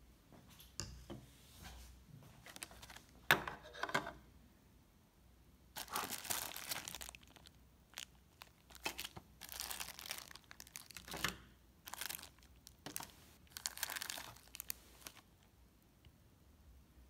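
Clear plastic bags and a plastic blister tray crinkling as they are handled, in several bursts of a second or two.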